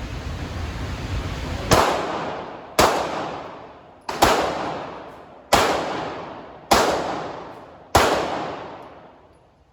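Six shots from a handgun, about a second apart, each trailing off in a long echo. A steady low rumble comes before the first shot.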